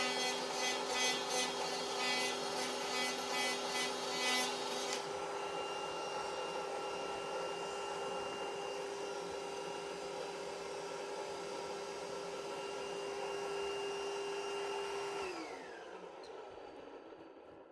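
Electric power cutting tool with its blade in a wall, cutting for about the first five seconds with a rough, rhythmic rasp over its motor whine. It then runs on with a steady whine, and near the end it is switched off, the pitch dropping as it winds down.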